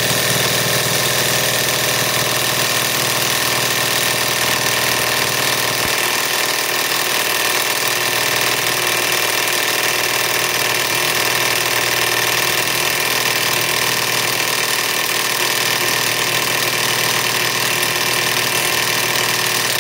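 Kobalt KIW1240 24-volt mid-torque cordless impact wrench hammering continuously in reverse on a 1 1/2-inch nut that will not break loose. It cuts off abruptly at the end.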